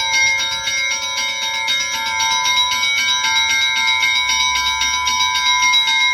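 Russian Orthodox church bells rung by hand. Several bells are struck in rapid, continuous succession, and their ringing tones overlap.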